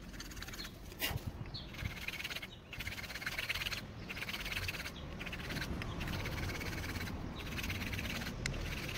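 Hand-abrading a brake pad's friction surface: repeated rasping strokes, about one a second with short breaks between them. This is done to notch and scuff the glazed, hardened pad surface so the pads do not squeal.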